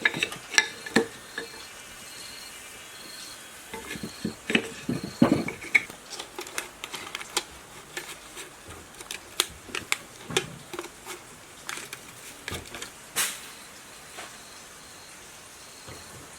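Metal tools and parts of an electric water pump motor clinking and knocking in quick, irregular taps. The taps are densest a few seconds in, with one louder strike near the end.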